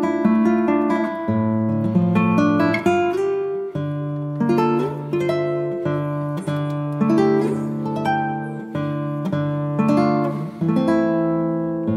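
Background music: a plucked acoustic guitar, notes ringing and fading over a slow low bass line.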